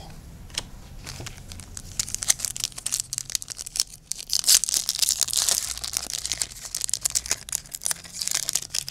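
Foil trading-card booster pack wrapper crinkling and tearing as it is opened by hand, a dense crackle that starts about two seconds in and is loudest around halfway and again near the end.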